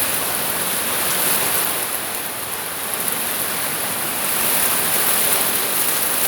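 Heavy rain falling in a downpour: a dense, steady hiss.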